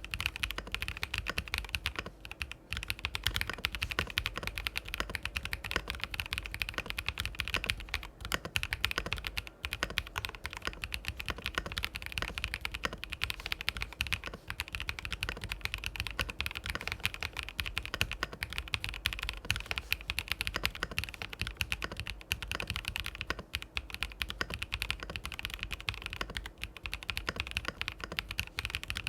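Geonworks Frog mechanical keyboard with fully lubed Haimu Midnight linear switches being typed on fast and continuously, producing a dense run of low-pitched, clacky keystrokes broken by a few brief pauses.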